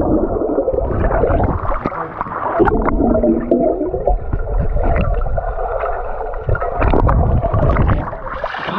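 Muffled underwater sound in a swimming pool, recorded by a camera held under the water: a dense low rumble and gurgling of moving water with scattered small clicks. Near the end the sound opens up and brightens as the camera comes up through the surface.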